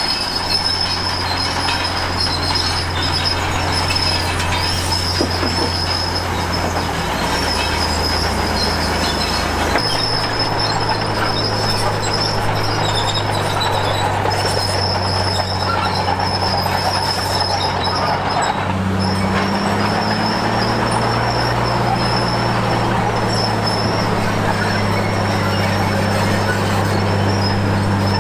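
Komatsu D53P crawler bulldozer working, its diesel engine running steadily while the steel tracks squeal and rattle. The engine note steps up about ten seconds in and again a little before twenty seconds.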